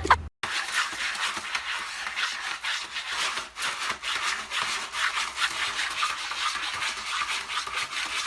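Continuous rapid scratching or rubbing, a dense run of irregular rasping strokes.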